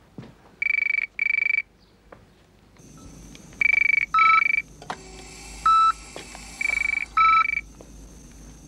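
Telephone ringing in the British double-ring cadence, three 'burr-burr' pairs about three seconds apart, each burst a buzzing tone. From about three seconds in, a steady hiss and a short lower beep repeating about every second and a half, typical of a hospital heart monitor, sound under the rings.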